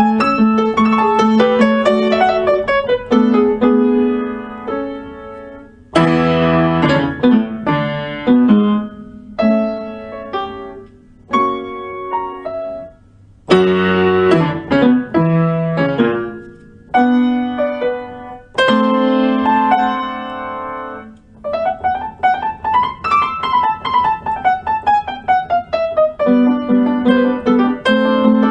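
Background piano music: struck chords and flowing runs of notes that rise and fall, with some gaps where notes die away.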